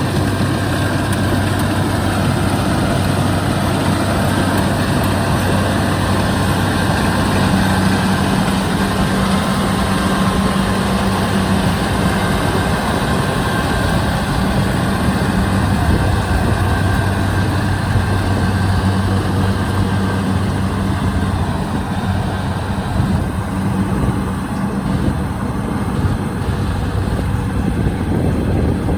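Kubota rice combine harvester's diesel engine running steadily at working speed, a low drone that shifts slightly in pitch now and then.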